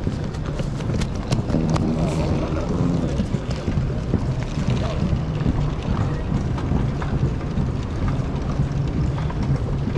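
Airport terminal ambience: a steady low hum with a low rumble underneath, and a few sharp clicks.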